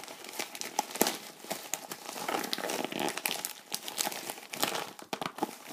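Plastic poly mailer bag being crinkled and pulled open by hand: a run of irregular crackling and rustling, with a sharp snap about a second in.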